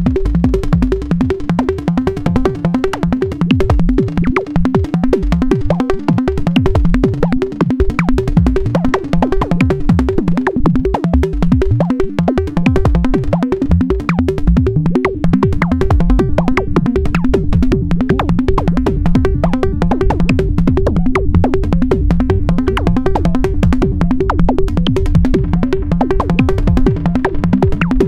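Make Noise Eurorack modular synthesizer playing an electronic patch of tuned, pitched kick drums in a steady, fast-repeating rhythm.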